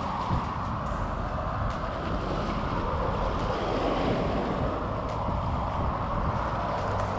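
Wind buffeting the microphone over small waves washing on shoreline rocks, with a spinning reel being cranked as a fish is reeled in. A steady noise with no break.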